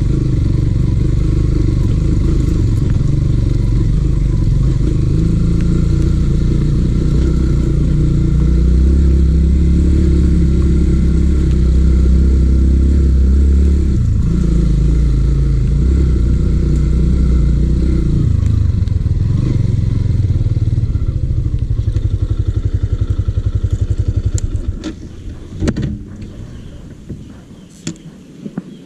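Yamaha XTZ150's single-cylinder engine running as the bike is ridden, its pitch shifting a few times. About 25 seconds in it drops away and goes quiet, leaving a few scattered knocks and clicks.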